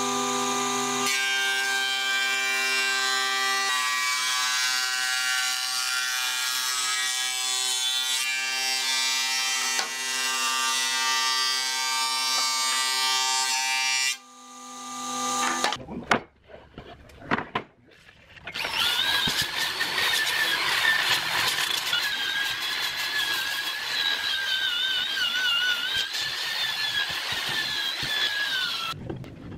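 Combination jointer-planer running with a steady whine and the hiss of cutting as a board feeds through its thicknesser; it stops about halfway through. After a few knocks, an electric drill spins a wire brush over the wood surface, its whine wavering up and down with the pressure.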